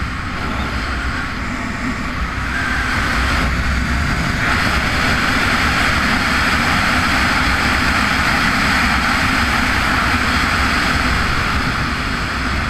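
Arctic Cat 1000XT ATV's engine running steadily while riding along a road, with a rushing noise that swells about four seconds in and then holds.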